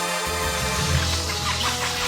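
Theme music with sustained low bass notes and a busy, fluttering upper layer.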